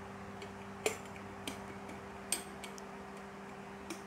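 A few short, sharp clicks and taps as hands work the lid of a small glass storage jar with a rubber seal, the two loudest a little under a second and about two seconds in. A steady low hum runs underneath.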